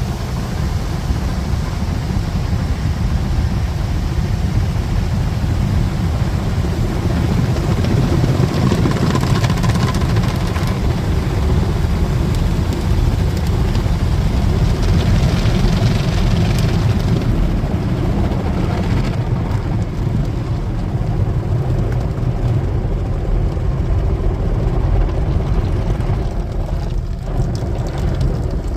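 Car wash heard from inside the car: a steady rush of water spray and wash machinery with a deep rumble. A hissier spray passes over from about eight to seventeen seconds in.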